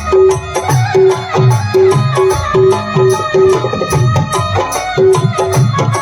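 Indian folk music played live on hand drums in a steady rhythm, with melody above. A high ringing drum stroke repeats about two to three times a second over deep drum strokes that bend in pitch.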